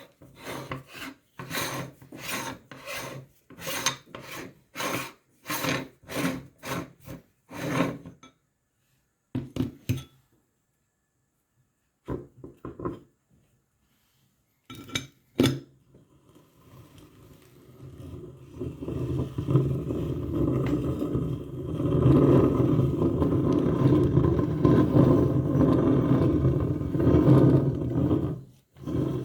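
Meat grinder crushing Golden Oreo cookies: a run of crunching strokes about two a second, a few scattered crunches, then a steady grinding that builds up and cuts off near the end.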